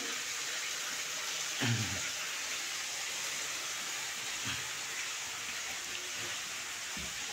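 Steady, even hiss with a short low sound about one and a half seconds in and a few faint low knocks later.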